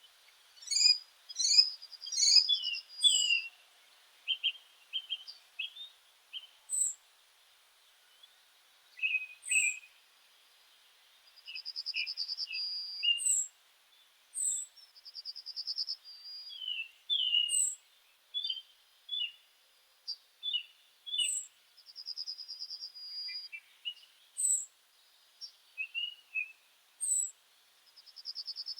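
Meadow birds singing: short high chirps and quick sliding notes, with a rapid trill of about a second and a half that comes back four times.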